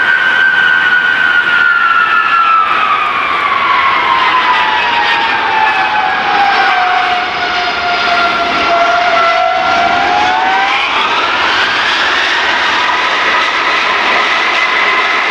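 Lockheed C-5A Galaxy's four General Electric TF39 turbofans whining loudly on landing. The whine slides down in pitch over the first eight seconds as the engines wind down after touchdown, then climbs sharply about ten seconds in as they spool up again, as for reverse thrust on the rollout.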